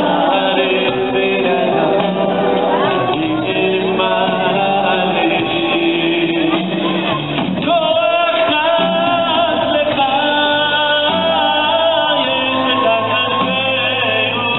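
Live band music with a male lead vocal singing over keyboards and drums, recorded from the audience with the sound cut off above the mid treble, so it sounds thin and dull.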